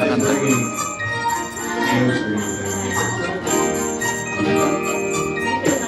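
Christmas music with jingle bells ringing along.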